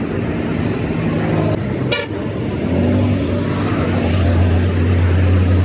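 A motor or engine running with a steady low hum, growing louder about three seconds in, with a single sharp click about two seconds in.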